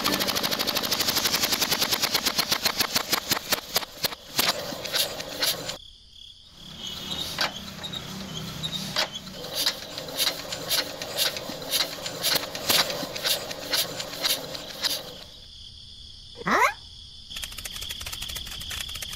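Rapid mechanical clicking from a miniature model engine driving a belt, slowing and stopping about six seconds in. It then starts again with slower, evenly spaced clicks, and a short rising glide comes near the end.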